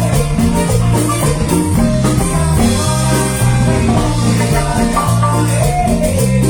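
Marimba orchestra playing an upbeat Latin dance tune: a busy marimba melody over a steady bass line, with a regular beat on top.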